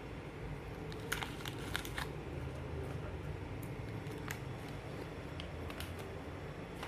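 Light, sharp clicks and taps from miniature cookware being handled: a quick cluster about a second in, then single clicks spaced a second or more apart, over a steady low background hum.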